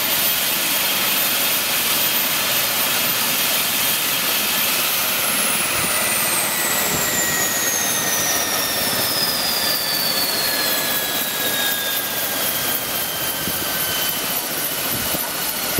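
Eurocopter EC135 twin-turbine helicopter on the ground with its rotor turning: a steady rush with a high turbine whine that, about five seconds in, begins gliding steadily down in pitch as the engines wind down.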